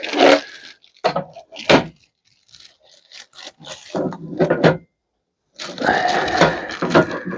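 Scrap metal parts from a stripped range hood being handled: a few sharp knocks and clatters, then stretches of scraping and rattling, the longest near the end.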